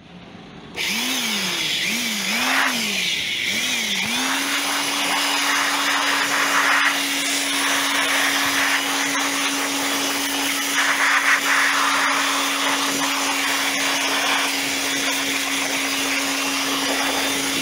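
A small electric fan-driven tool (blower or vacuum type) running with a loud rush of air. About a second in it starts, its motor pitch rises and falls several times as it is pulsed on and off, then holds a steady whine.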